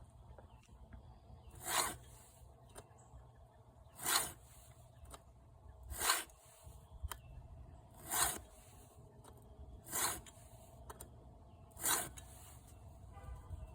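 File strokes on a .325 semi-chisel chainsaw chain cutter tooth: six slow, even rasping strokes about two seconds apart, sharpening a damaged tooth that has a nasty burr.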